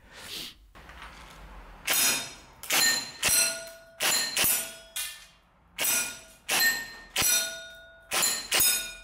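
Maruzen Ingram M11 gas blowback airsoft gun firing about a dozen single shots at uneven intervals, beginning about two seconds in. Each shot comes with a ringing metallic clang.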